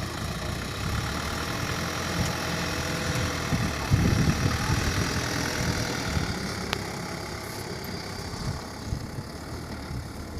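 Diesel engine of the site machinery running steadily, louder for a moment about four seconds in, with a single sharp click a little later.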